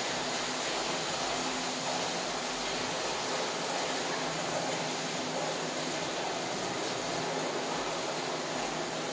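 Water tanker truck running, pumping water through a hose into an underground cement cistern: a steady, even rush of running machinery and flowing water with a faint low hum.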